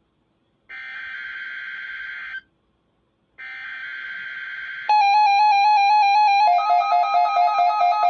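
EAS SAME header data bursts: two harsh, buzzy digital bursts of about a second and a half each, with a short silence between them. They complete the three-times-repeated header of a Required Weekly Test. About five seconds in, a much louder warbling electronic alert tone starts, and it changes pitch pattern a second and a half later.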